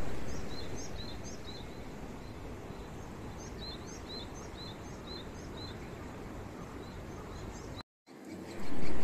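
A small bird calling over and over in short, quick chirps, thinning out after about five seconds, over a steady low outdoor rumble that is louder for the first second or so.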